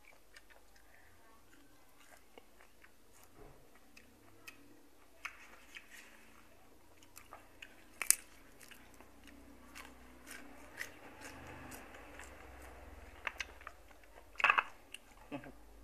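Close, wet chewing of a mouthful of boiled golden apple snail meat, with scattered sharp clicks; the loudest click comes about eight seconds in and a small cluster near the end.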